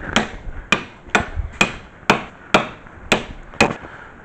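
Hammer blows on metal during a brake job on a vehicle's front hub: about eight sharp strikes, roughly two a second, stopping about three and a half seconds in.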